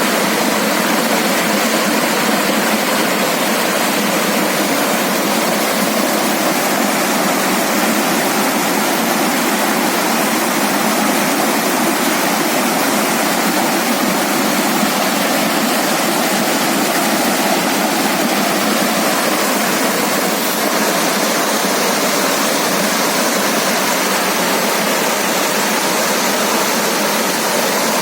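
Waterfall: water falling and splashing in a loud, steady rush, with no low rumble.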